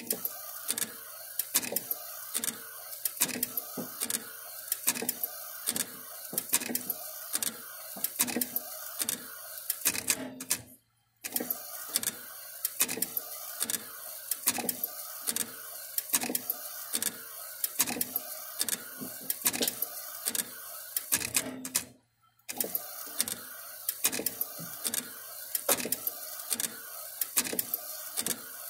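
UV flatbed inkjet printer printing onto poker chips: the print-head carriage shuttles back and forth with a quick, regular run of clicks, about three a second, over a steady hiss. The sound cuts out briefly twice.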